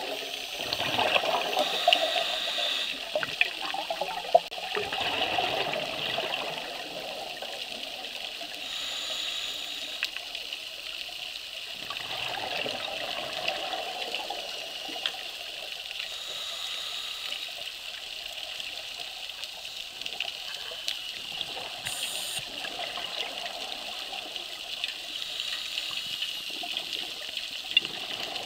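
Underwater sound of a scuba diver's regulator breathing: exhaled bubbles rushing past the microphone several times over a steady hiss of water.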